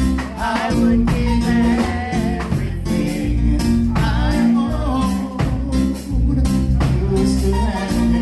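Reggae song with a male or female singer, guitar, bass and drums keeping a steady beat.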